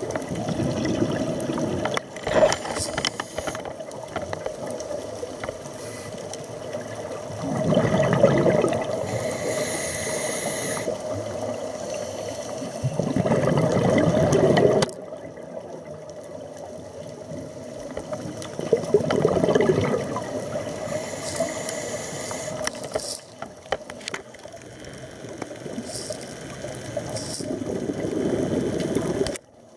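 Scuba regulator breathing heard underwater: a hiss on each inhale and a rumbling burst of exhaust bubbles on each exhale, repeating about every five or six seconds. A faint steady hum runs underneath.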